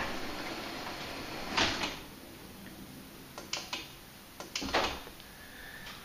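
Linear LDC0800 DC belt-drive garage door opener running as it lowers a sectional garage door, with a louder bump about a second and a half in as the door seats against the floor and stops. A few light knocks and clicks follow.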